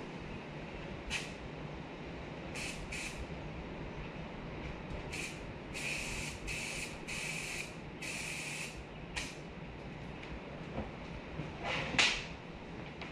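Short hissing spray bursts, about ten of them, several in quick succession in the middle and the loudest and longest near the end, over a steady low background hum.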